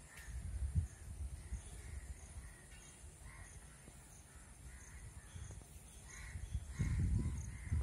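A few short bird calls, bunched in the second half, over a low rumble on the microphone that swells again near the end.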